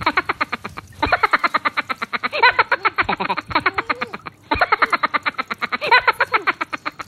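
Laughing-meme sound effect: a woman's rapid, rattling laugh, played as a loop that restarts about every three and a half seconds.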